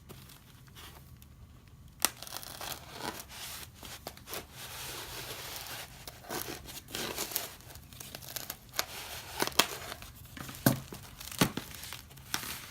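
Glued layers of packing foam being pulled apart and handled, a tearing, crinkly rustle. There is a sharp click about two seconds in and scattered clicks and knocks later on.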